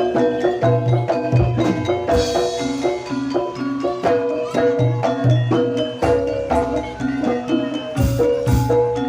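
Jaranan Dor ensemble playing: a quick, repeating melody on gamelan mallet instruments, with deep strokes of the jidor bass drum falling in pairs every few seconds.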